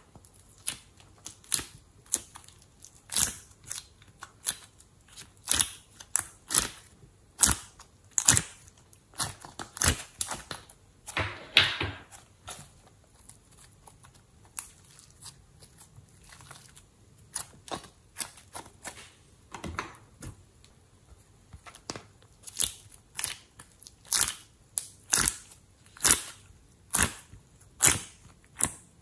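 A flexible plastic ice-cube-tray mold is bent and pressed as colored clay cubes are popped out of its cells one by one: sharp, irregular plastic clicks and snaps, roughly one or two a second, with a longer crackle partway through.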